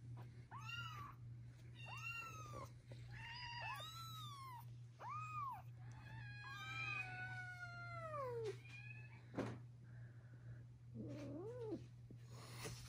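Newborn kittens meowing over and over in high, arching cries, some overlapping, with one long cry that falls in pitch about six seconds in and a lower cry near the end. A steady low hum runs underneath.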